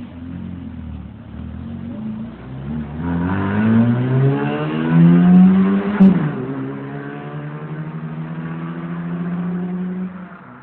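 Renault Clio Mk1 1.4 8-valve four-cylinder engine and exhaust revving up hard, its pitch climbing for a few seconds. About six seconds in the revs drop sharply with a short crack, then the engine holds steady at lower revs before it fades near the end.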